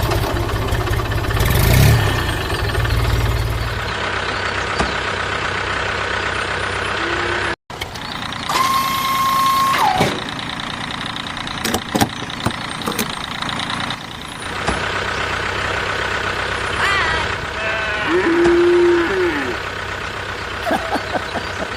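Vehicle engine running steadily, with a deep rumble in the first few seconds, a short held horn-like tone about nine seconds in, and scattered clicks and knocks.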